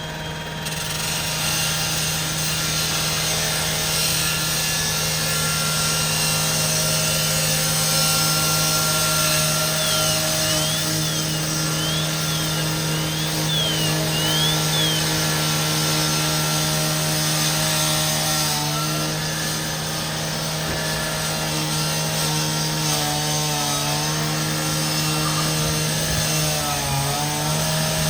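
Gas-powered saw running steadily at high revs, its pitch dipping briefly a few times in the second half as it bogs under load while cutting, typical of firefighters' saws opening up a roof for ventilation.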